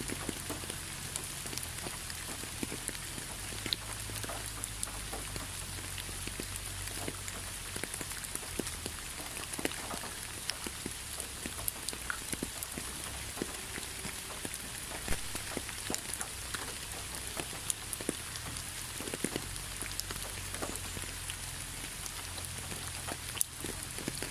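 Steady rainfall in a forest: a constant hiss of rain with many close drops tapping sharply on leaves and surfaces, over a low rumble.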